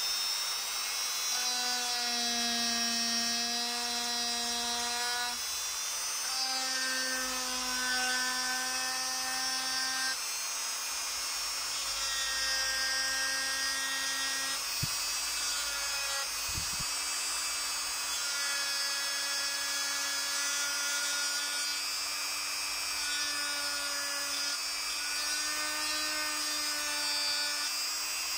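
Vitals Master EU2035JMcs rotary engraver running with a steady whine as its engraving bit cuts letters into a wood-laminate board. The pitch shifts a little now and then as the bit bears into the surface.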